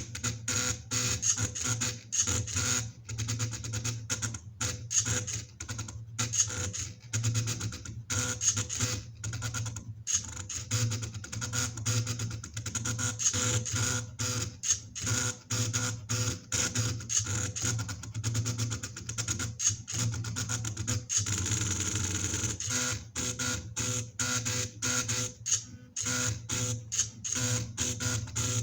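Stepper motors from recycled DVD drives whining and buzzing in rapid stop-start moves as a homemade mini CNC plotter draws, the tone breaking off many times a second.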